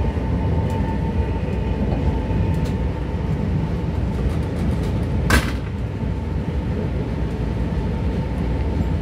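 Train running along the track: a steady rumble with a constant high whine, and one short, sharp burst of noise about five seconds in.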